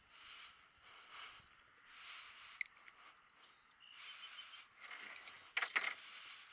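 Faint outdoor ambience: a steady hiss with a single sharp click, then a quick cluster of louder clicks or knocks near the end.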